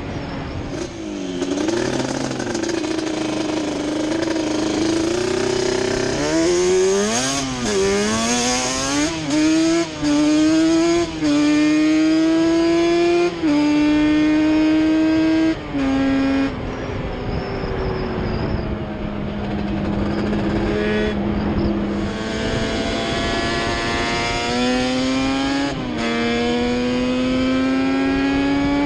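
Yamaha Banshee's twin-cylinder two-stroke engine being ridden hard, pulling up through the gears: the pitch climbs, then drops sharply at each shift. There is quick revving a few seconds in, a steadier lower drone partway through, and another climb through the gears near the end.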